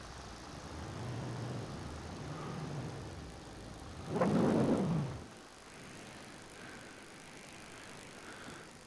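Paramotor engine and propeller running faintly, with a brief louder rush of noise about four seconds in that lasts about a second.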